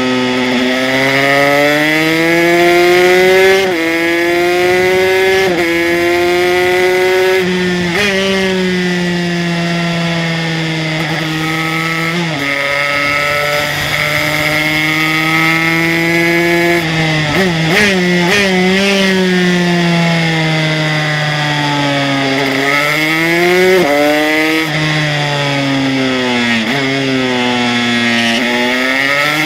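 Aprilia RS125's single-cylinder two-stroke engine, fitted with a 144cc HTM Racing kit, revving hard under acceleration. Its pitch climbs and drops sharply at each upshift, sinks and stutters through a run of downshifts around the middle, then climbs through the gears again.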